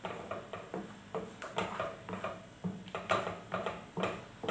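Wooden spatula stirring thick harissa paste in a metal saucepan as it cooks down on low heat: repeated scraping strokes against the pan, about two or three a second, over a faint steady hum.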